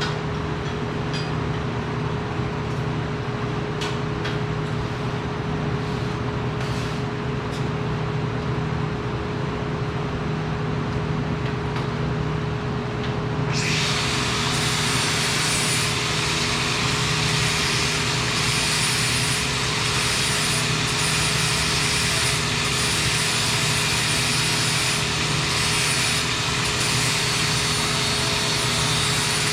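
Steady machinery hum with a fixed tone; about halfway through, a loud steady hiss starts suddenly and carries on.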